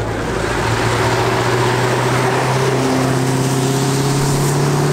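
A car engine running at steady, slowly climbing revs as the car drives off on a wet road, over a steady hiss of tyres on wet tarmac.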